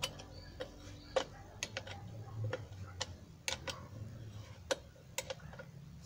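Irregular light clicks and taps, about one or two a second, from a Citroën 2CV cooling fan being handled and turned over by hand, over a faint low hum.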